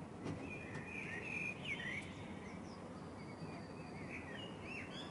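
Park ambience: small birds chirping and twittering in short, repeated calls over a steady background of distant outdoor noise.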